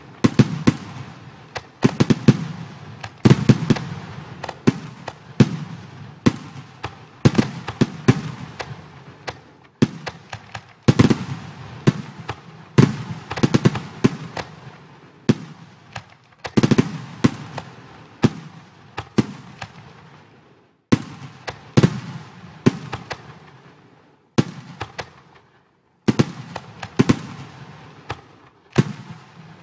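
Simulated fireworks sound effects: aerial shells bang one after another, often several in quick succession, and each bang fades off in crackle and hiss. The bursts come in dense runs, with a few short lulls in the last third.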